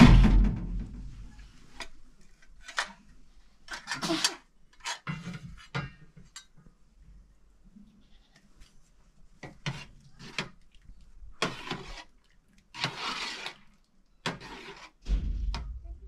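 Kitchen clatter from a pot lid and a spoon against a cooking pot: scattered short clanks, knocks and scrapes as the lid is lifted and the food stirred. The loudest is a clank right at the start.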